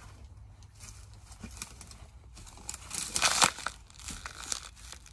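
Crackly rustling of dry grass and canvas clothing close to the microphone as a person moves and handles a catch right beside it. It comes in irregular bursts, loudest about three seconds in.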